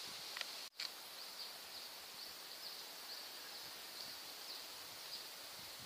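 Faint rural outdoor ambience: a steady high drone with short chirps repeating about twice a second, and no train sound yet. The sound cuts out for an instant a little under a second in.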